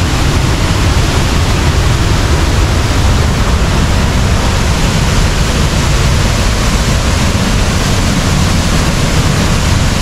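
Powerful jungle waterfall and the white-water rapids below it, rushing in a steady, loud wash of water noise with a deep rumble underneath.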